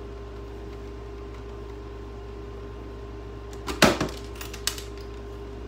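Refrigerator door parts being handled during disassembly: a loud clatter of knocks about four seconds in, then a single sharper knock about a second later. A steady hum runs underneath.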